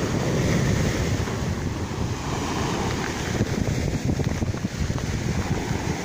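Small sea waves breaking and washing up the shore in a steady wash, with wind buffeting the microphone and adding a low rumble.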